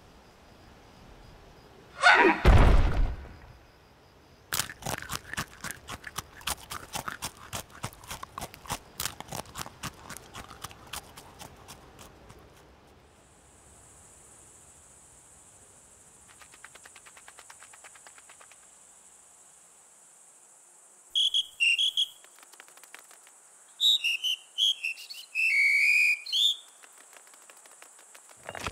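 Cartoon sound effects of a pile of cubes being blown apart: one loud, deep crash about two seconds in, then a long patter of small hard pieces clattering down and thinning out. A thin high steady tone follows and holds, and near the end come two bursts of short chirping insect calls.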